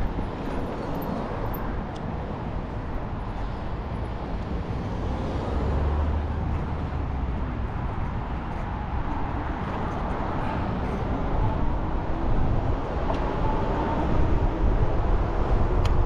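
Wind rushing over the microphone with tyre and road rumble from a bicycle riding along, growing a little louder in the second half.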